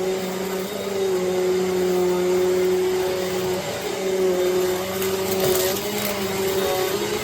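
Eureka AirSpeed bagless upright vacuum cleaner running: a steady motor whine over a hiss of air, with a brief burst of louder hiss about five seconds in.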